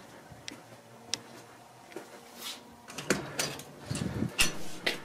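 Black metal mesh security screen door being unlocked and opened: a few sharp clicks, then a burst of latch clicks, knocks and rattling from about three seconds in.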